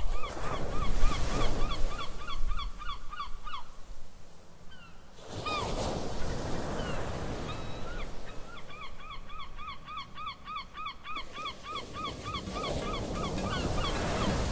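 A bird calling in a rapid run of short, upward-hooked chirps, about five a second, over a background wash of noise; it stops for about five seconds and then starts up again in a second long run.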